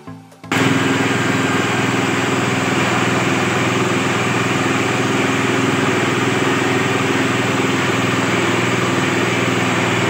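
Motor of a combined flour mill and grater/grinder machine running steadily at a constant pitch. It starts abruptly about half a second in, right after a short burst of music.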